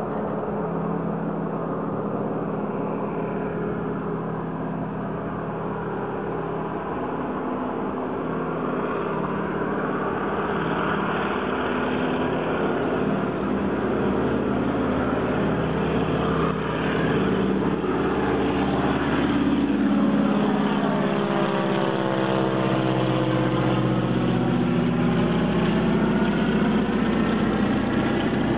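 Small floatplane's piston engine droning steadily, growing louder as the plane comes in low over the water. Its pitch drops a little about three quarters of the way through as it passes.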